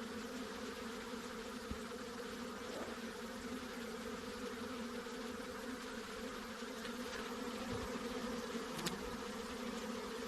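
Honey bees buzzing in a steady hum with a low tone and one an octave above it. A single brief tick comes near the end.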